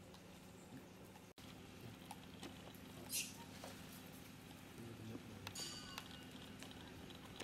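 Faint outdoor ambience with a steady low hum. A brief high chirp comes about three seconds in, and a short, high-pitched squeak near six seconds.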